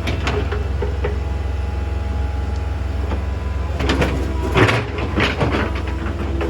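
Hydraulic excavator's diesel engine running steadily, with a burst of clattering and scraping from about four seconds in to past five seconds as the machine works stony soil.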